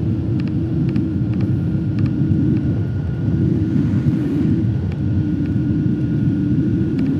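Vehicle travelling steadily along a road at cruising speed: a loud, steady low rumble with a faint high whine held at one pitch and a few light ticks.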